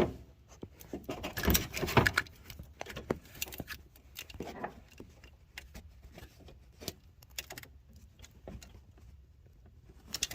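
Irregular light clicks, clinks and knocks of small hard objects being handled. They are loudest in the first two seconds and lighter and sparser after that.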